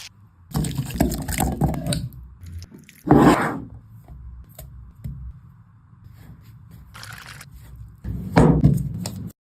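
Irregular scraping and wet squishing noises in several short bursts, with quieter gaps between them.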